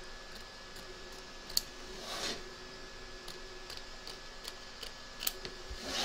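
Small embroidery scissors snipping appliqué fabric close to the stitch line, giving faint scattered clicks of the blades. The clearest snips come about a second and a half in and again near the end, with two short rustles of fabric being handled.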